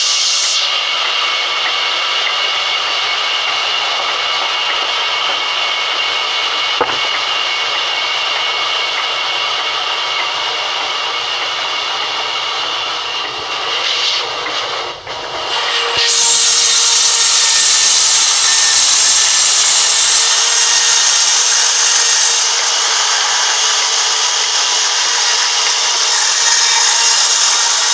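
Large sawmill band saw running with a steady whine, its blade ripping through a log with a loud hiss. The cutting hiss is weaker through the first half, dips briefly, then comes back strongly for the second half.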